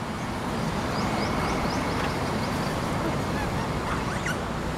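Steady rushing background noise, with a quick run of faint, short high chirps between about half a second and a second and a half in.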